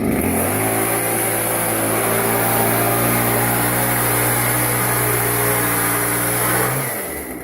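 Angle grinder spinning up, then running steadily with a high hiss as it cuts metal; it switches off and winds down near the end.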